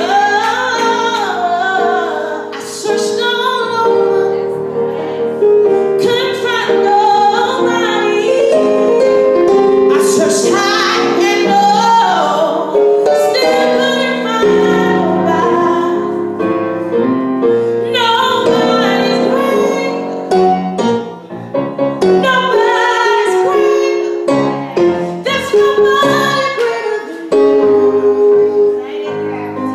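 A woman singing live into a microphone with piano accompaniment, holding long notes and sliding between pitches.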